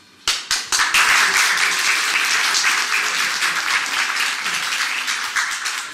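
A group of people applauding: a few separate claps about a quarter second in, quickly building into steady applause that thins slightly near the end.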